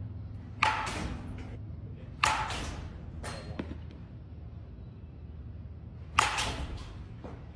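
Three sharp baseball practice impacts, a ball striking a bat or a glove, each with a short ringing tail, over a low steady background hum.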